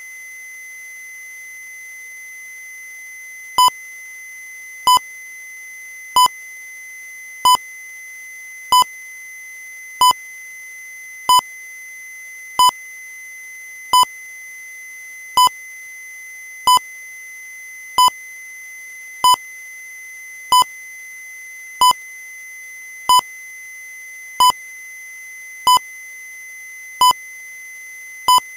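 Short electronic beeps, one about every 1.3 seconds, beginning a few seconds in and going on steadily, over a constant high-pitched tone.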